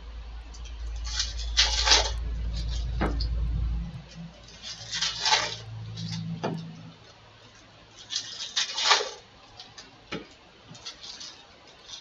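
Bowman baseball card pack wrappers crinkling as they are torn open and handled, in three bursts of about a second each, with a few soft knocks of card stacks set down on the table between them. A low hum underlies the first four seconds.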